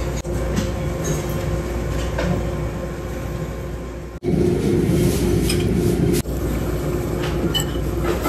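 Steady low rumble and hum of a ferry's engines under way, heard in the ship's dining room. It is louder for about two seconds in the middle. There is a light clink of a metal spoon against the plate near the end.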